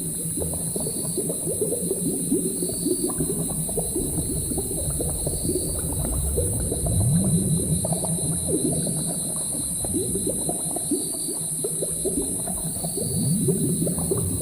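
Layered ambience of liquid bubbling and gurgling, with dense irregular pops and crackles, a few slow low rising sounds, and a steady high hiss underneath.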